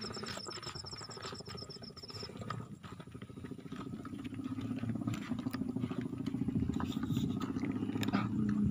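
An insect trills steadily in a fast high pulse for about the first two seconds. Then a low, rough, buzzing sound rises and grows steadily louder through the rest.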